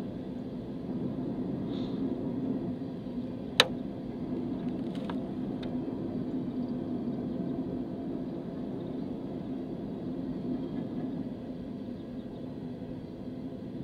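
Steady low rumble of a loaded BNSF coal train rolling past, with one sharp click about three and a half seconds in and a couple of faint ticks soon after.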